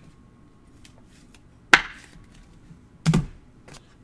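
A few sharp clicks and taps from trading cards being handled and set down. The loudest comes just under two seconds in, and a double click comes about three seconds in, with faint ticks between.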